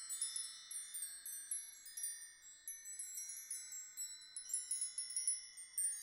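Tinkling chimes: many high, bell-like notes struck at scattered moments, each ringing on and overlapping the others, like wind chimes.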